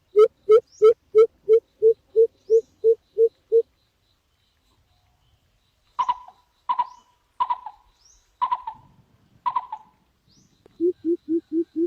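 A bird calling in a fast series of short, low, rising hoots, about three a second, which break off after a few seconds. After a short pause come five sharp clicks, spaced about a second apart, and the hoots start again near the end.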